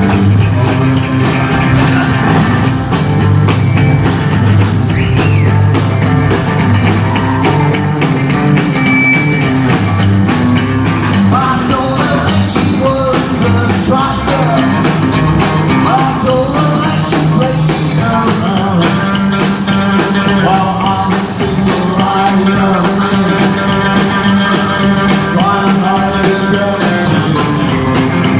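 Rockabilly band playing live: hollow-body and solid-body electric guitars, upright double bass and drum kit, with singing.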